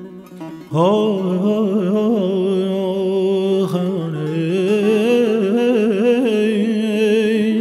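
Male voice singing a long wordless melisma in Persian classical avaz in the Afshari mode. It enters about a second in with an upward scoop and is held with rapid wavering ornaments in the throat.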